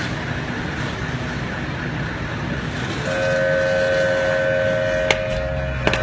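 Steady traffic noise; about three seconds in, a vehicle horn starts sounding a steady two-note blast that holds for about four seconds. Two short clicks come near the end.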